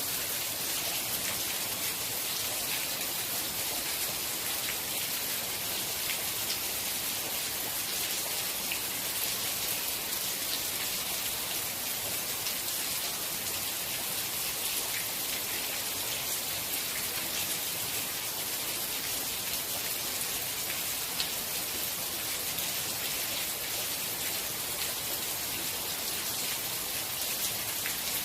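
Steady rain falling, a constant hiss with many small drop ticks.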